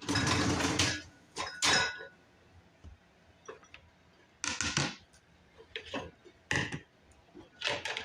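Dishes clinking and clattering against each other in several short bursts, the loudest in the first second, as clean dishes are taken out of a dishwasher.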